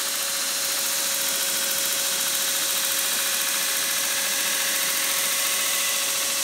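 Belt grinder running with a steady whine while a knife blade is hollow ground on the contact wheel, the abrasive belt hissing steadily against the steel.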